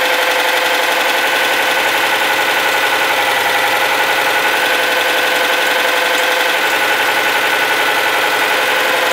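Citroën Dyane 6's air-cooled flat-twin engine running steadily at a constant speed. It makes a mechanical noise that the owner suspects may come from the rocker arms, but is not sure.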